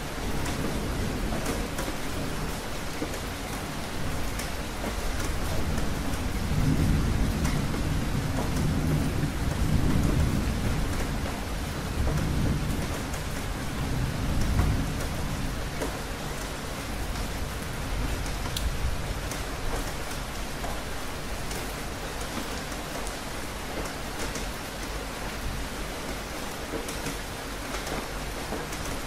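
Steady rain falling, with occasional close drops ticking. A long low rumble of thunder rolls in about six seconds in, swells several times and dies away a little past halfway.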